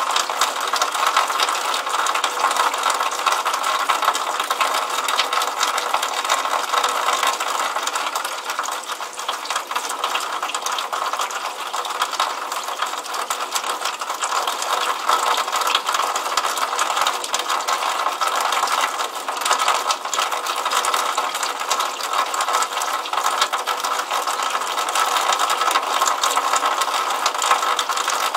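Water running from a downspout and splashing onto pavement and into a puddle: a steady, dense crackle of small splashes.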